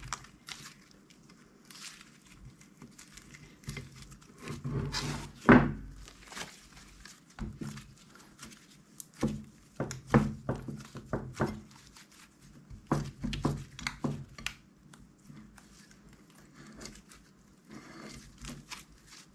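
Red slime squeezed in the hands and pulled off the sides of a glass dish, making irregular sticky clicks and pops in short clusters, the loudest about five seconds in.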